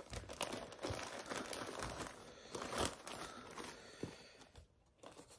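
Plastic packing material crinkling and rustling as a shipping box is unpacked, with scattered sharp crackles; it dies down near the end.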